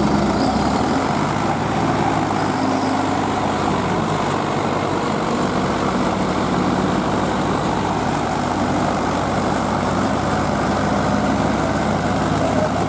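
Diesel tractor engines running steadily under load in deep mud: a Kubota B2441 compact tractor and an older cage-wheeled tractor working together.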